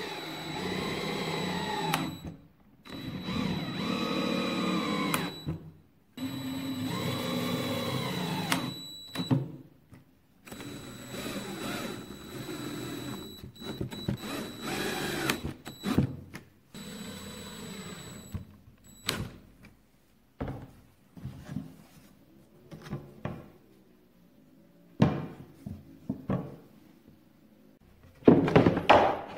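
Power drill driving screws into plywood and through a fabric webbing strap: several runs of a few seconds each, the motor speeding up and slowing down within each run, with a thin steady whine. In the later part, scattered knocks and taps of wooden parts being handled.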